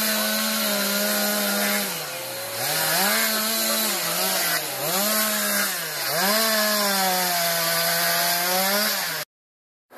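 Two-stroke chainsaw running at high revs as it carves into wood, its engine note dropping three times as the throttle is eased and rising again as it opens. The sound cuts off suddenly near the end.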